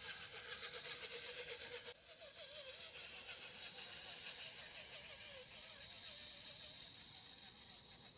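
Small electric motor and gear drive of a 1/10-scale RC rock crawler whining as it drives through grass, its pitch wavering with the throttle. It becomes quieter about two seconds in.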